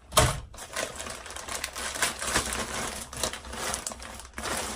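Plastic packaging crinkling and rustling as it is handled, with a knock about a quarter second in and irregular crackles and clicks throughout.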